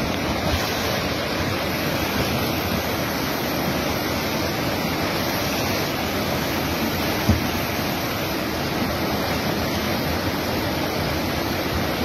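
Swollen flood river rushing past, a steady loud noise of churning muddy water. A brief low thump about seven seconds in.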